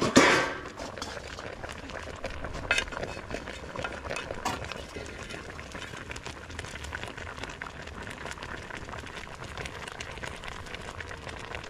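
Pumpkin pieces boiling in liquid in a large steel pan: a steady bubbling with fine crackles. A metal lid clatters loudly against the pan at the start, and a few lighter knocks of metal on metal follow a few seconds in as the lid is lifted off.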